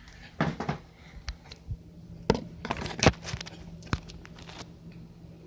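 Irregular light clicks and knocks of a plastic BB pistol being handled, over a faint steady low hum.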